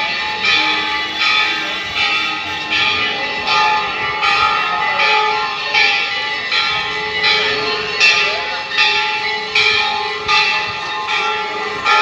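Hindu temple bell struck over and over at a steady pace, about four strikes every three seconds, each ringing on into the next.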